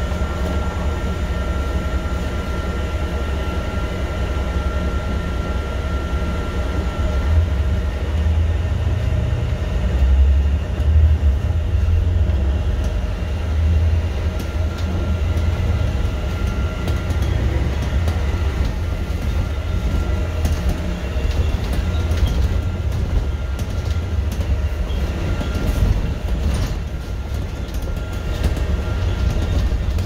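Inside a moving city bus: a steady low rumble of engine and road noise, with a faint whine that fades in and out. Scattered light clicks and rattles come in the second half.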